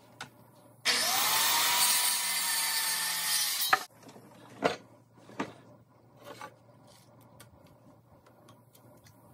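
Corded circular saw cutting through a wooden board for about three seconds: the motor whine climbs as it spins up, holds steady through the cut, then stops suddenly. Two sharp knocks of wood follow.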